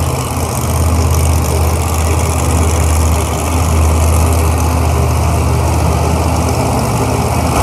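Bounty Hunter monster truck's supercharged V8 idling with a steady low rumble.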